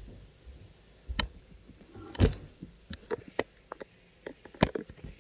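Handling noise from the camera being picked up and moved: a string of sharp knocks and clicks. The loudest is a thump about two seconds in, with another strong knock near the end.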